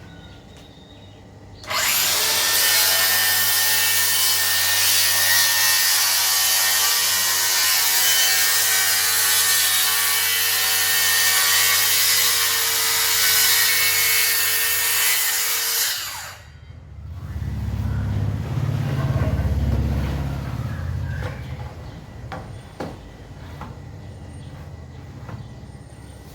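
DeWalt DCS578 cordless circular saw cutting through wood: its motor whine and the blade's cutting noise start about two seconds in, run steadily for about fourteen seconds, then stop abruptly. A softer low rumble follows for a few seconds.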